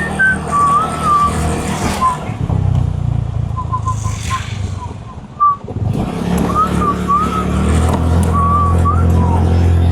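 Steady low rumble of a motor vehicle's engine and road noise, dipping briefly about halfway through. Short high chirping, warbling notes and quick little runs of ticks sound over it.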